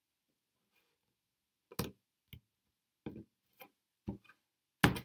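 Tarot cards being handled and laid down on a wooden table: a handful of short, separate taps and slaps, the loudest near the end.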